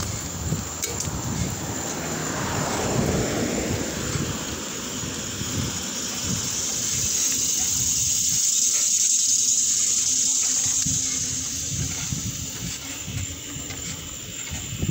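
Wind rushing over the microphone of a moving bicycle, with a low gusty rumble and tyre noise on asphalt. The rushing hiss swells for a few seconds in the middle, and there is a falling whoosh about two to three seconds in.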